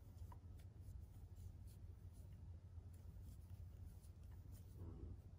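Near silence: a steady low room hum with faint, scattered soft ticks and rustles of a crochet hook working yarn.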